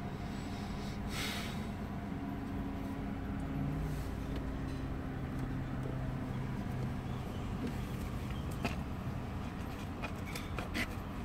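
Steady low hum of a car idling, heard inside the cabin, its tone shifting slightly about three and a half seconds in. Several light clicks near the end from a finger tapping the head unit's touchscreen and buttons.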